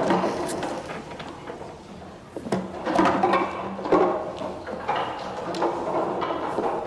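Knocks and clatter of a heavy wooden door being opened and chairs being moved about.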